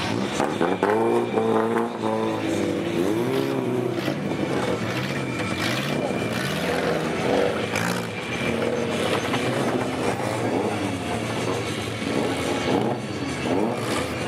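Several 1400–1799 cc autocross cars' petrol engines revving on a dirt track, their pitch repeatedly rising and falling as the cars accelerate and lift off, overlapping one another.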